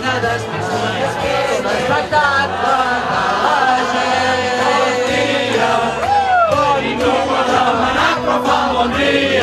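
A group of people singing a song together in chorus, with instrumental accompaniment underneath and crowd noise.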